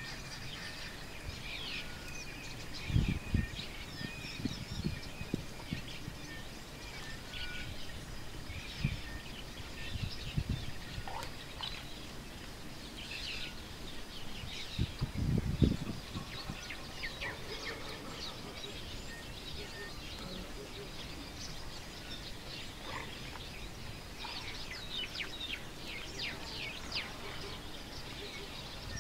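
Outdoor bush ambience with many wild birds chirping and calling throughout. A few short low thumps come in between, the loudest about halfway through.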